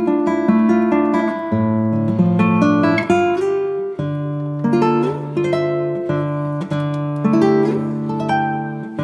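Background music of an acoustic guitar playing plucked and strummed chords, the notes ringing on between changes.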